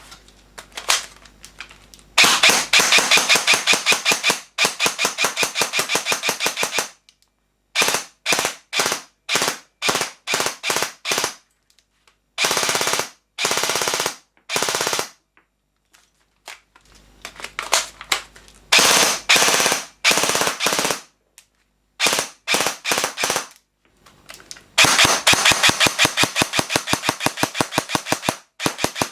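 ASG CZ Scorpion EVO 3 A1 airsoft electric gun firing: long full-auto bursts of fast, even clicks, alternating with strings of separate single shots.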